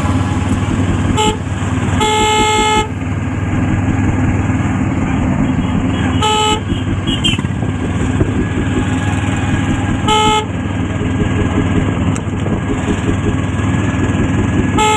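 A vehicle horn honks about five times: short toots, with one longer blast about two seconds in. Under it runs a steady engine and road rumble of traffic.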